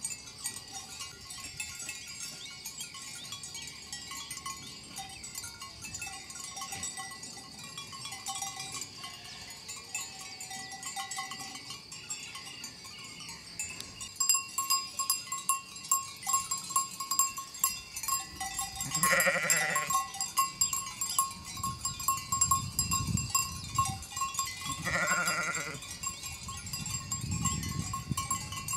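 Livestock bells on a grazing flock of sheep and goats ringing and clanking steadily, getting louder and busier about halfway through as a belled sheep walks close by. Two bleats from the flock, one about two-thirds of the way in and one near the end.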